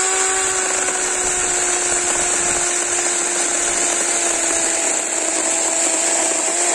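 DeWalt DCCS620 20V brushless cordless chainsaw running at full speed and cutting through a 2x3 board. A steady electric-motor whine sits over the rasp of the chain in the wood, its pitch sagging slightly under load as the cut goes on.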